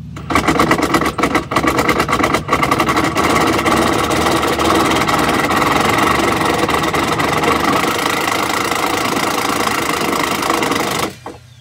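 Power impact wrench running on a step-bar mounting bolt: quick hammering strokes for the first few seconds, then a steady run for about eleven seconds in all, cutting off suddenly near the end.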